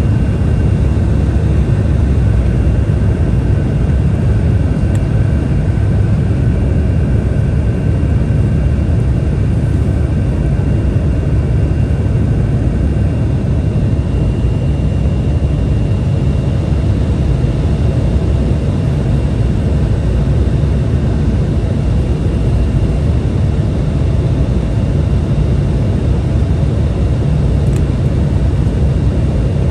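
Steady cabin noise inside an Embraer 175 jet in flight: a deep, even roar of airflow and its two GE CF34 turbofans, with a faint high whine above it.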